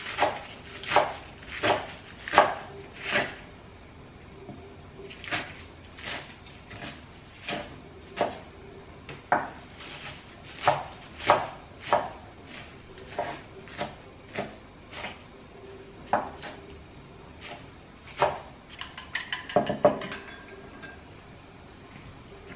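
Chef's knife chopping spinach on a wooden cutting board: sharp knocks of the blade on the wood, about one every three-quarters of a second at first, then less even. Near the end comes a quick flurry of lighter knocks.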